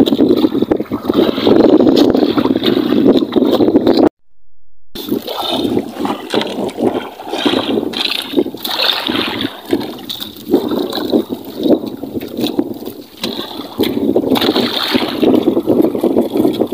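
Choppy sea water sloshing and lapping against a small outrigger boat's hull, a steady rushing noise broken by frequent slaps. It cuts out for about a second about four seconds in.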